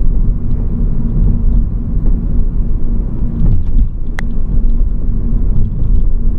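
A 2019 Audi A4L driving on a road, with a heavy low road-and-chassis rumble, light ticks, and one sharp knock about four seconds in. This is the intermittent left-rear knocking on light bumps that the mechanic suspects comes from a loose bolt at the left-rear mount of the rear subframe.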